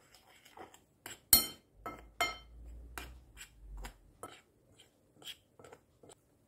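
A spoon knocking and scraping against a ceramic bowl while stirring a dry flour-and-cornstarch coating mix: about a dozen irregular clinks and taps, the loudest a little over a second in.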